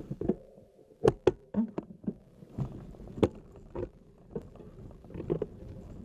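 Irregular knocks and thumps, about a dozen, with rustling and rumble between them, from a camera jolting as it moves over rough, overgrown ground.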